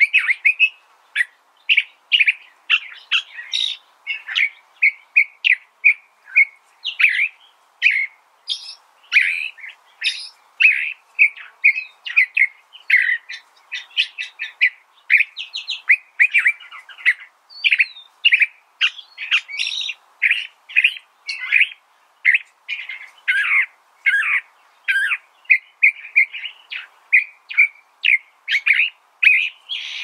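California thrasher singing: a long, unbroken run of short, varied chirping phrases, about three to four notes a second, over a faint background hiss.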